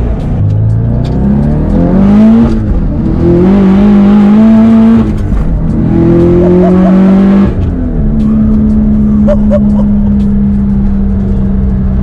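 Turbocharged Subaru STI flat-four on a Cobb cat-back exhaust, heard from inside the cabin while pulling hard. The revs climb and drop back at gear changes about two and a half and five seconds in, then fall at about seven and a half seconds and hold steady at a cruise.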